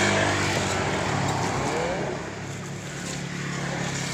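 A motor vehicle's engine running with a steady hum, loudest at the start and easing off a little after about two seconds.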